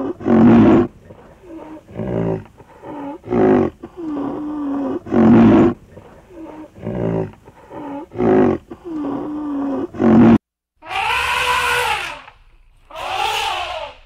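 An animal calling over and over, loud short calls alternating with quieter drawn-out ones about every second or two. About ten seconds in the sound cuts off, then two different, higher calls follow.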